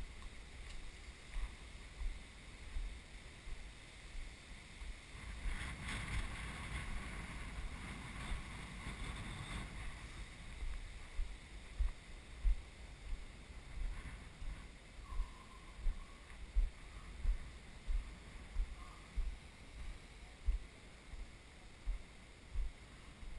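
Footsteps of a body-worn camera's wearer walking over granite boulders: a regular dull thump about once every three-quarters of a second. Wind rushes on the microphone for a few seconds near the middle.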